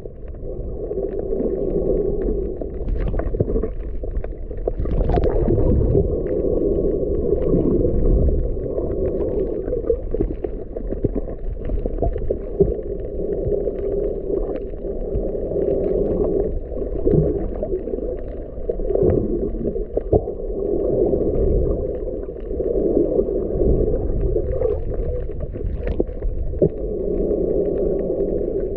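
Muffled underwater noise heard through a submerged camera: a low rumbling wash of moving water that swells and fades every few seconds, with faint scattered clicks.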